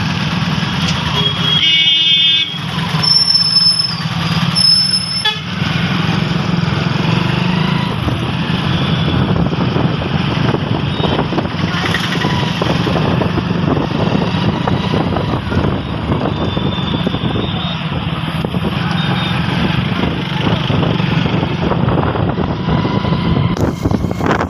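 Road noise from riding on the back of a motorcycle in town traffic: engine, tyres and surrounding vehicles run steadily, with a vehicle horn sounding briefly about two seconds in. Near the end, cloth brushes and rustles against the phone's microphone.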